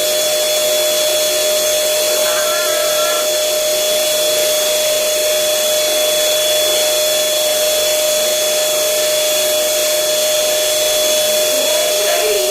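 Electric air blower running steadily with a constant motor whine, inflating a giant balloon.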